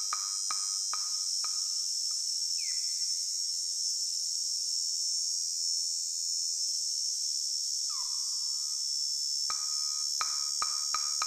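Electronic soundtrack: a steady high insect-like buzz under a rhythmic pattern of short pitched wood-block-like clicks. The clicks stop about a second and a half in, two short falling tones sound in the gap, and the clicks return near the end, faster.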